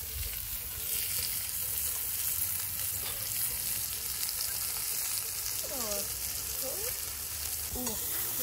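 Sliced onion and other vegetables frying in a pot over an open wood fire, with a steady sizzling hiss; near the end a spoon stirs them. A few short whistle-like glides sound about six and eight seconds in.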